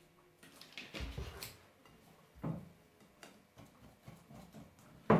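Wire whisk stirring thin tempura batter in a glass bowl, the wires ticking and clicking lightly against the glass, with a sharper knock near the end. About half a second in, a little water is poured in from a bottle.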